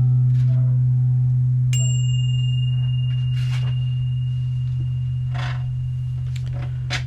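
Low steady hum that fades slowly, with a thin high steady tone that starts with a faint click about two seconds in and stops after about five seconds.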